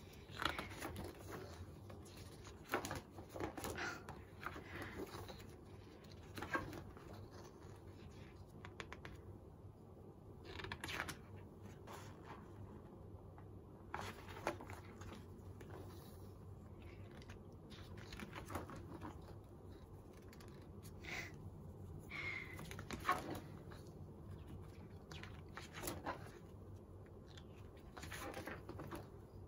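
Pages of a ring-bound photobook being turned by hand: scattered paper rustles, soft taps and clicks every second or few, with quiet gaps between.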